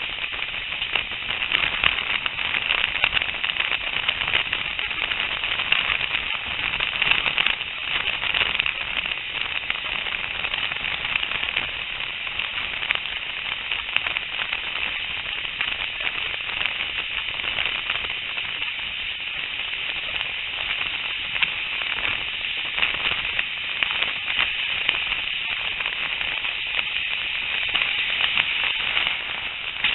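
A steam-hauled train in motion heard from an open carriage window: a steady, crackly rush of wheel and track noise mixed with wind.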